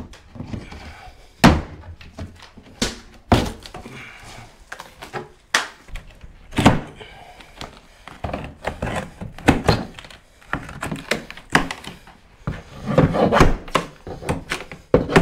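Heavy thuds and knocks of a timber stud wall being demolished, wood being struck and broken, at irregular intervals, coming thick and fast near the end.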